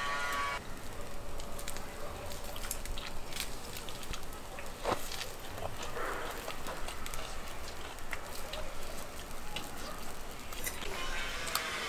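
Charcoal grill crackling and popping, with scattered sharp snaps and one louder pop about five seconds in.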